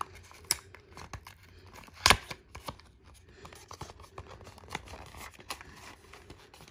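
Paperboard phone-case box being opened by hand: the end flap and packaging scrape, crackle and click, with one sharp snap about two seconds in.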